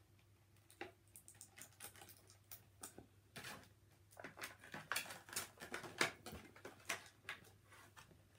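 Scissors snipping through clear plastic toy packaging, with the plastic crackling in a string of short, irregular clicks and snaps. They come sparsely at first and grow denser from about three seconds in.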